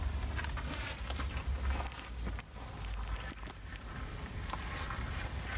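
Wind rumbling on the microphone, with scattered crackles and rustles of footsteps through tall grass.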